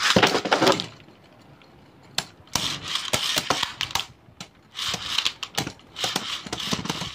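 A string launcher ripped to send a Beyblade Burst top into a plastic stadium, a short loud whir and clatter at the very start. Two spinning tops then clash repeatedly, rapid clattering clicks that come in three bursts.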